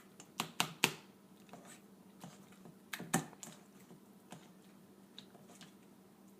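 Sharp clicks of a utensil against a bowl while a banana is mashed: a quick run of three just under a second in, two more about three seconds in, and fainter taps between.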